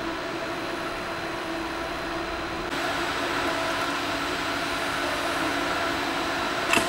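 Steady hum of ventilation and air-conditioning plant in an underground service area, with a few held tones over a hiss; it grows louder about two and a half seconds in. A short knock sounds near the end.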